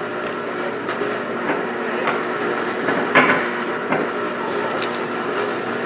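Drill press running with its bit boring through a piece of wood: a steady motor hum with irregular cracks and snaps of wood splintering, the strongest about three seconds in, as the bit breaks through.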